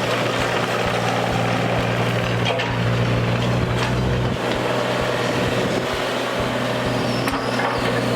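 Excavator's diesel engine running steadily with a low hum, with a few faint knocks while it digs.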